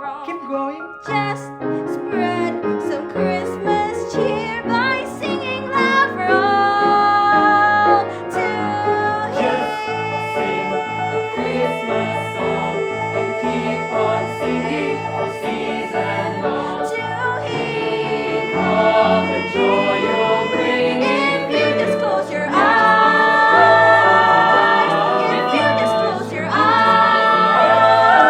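Music: a show tune with group singing over an instrumental accompaniment with a stepping bass line, swelling louder about two-thirds of the way through.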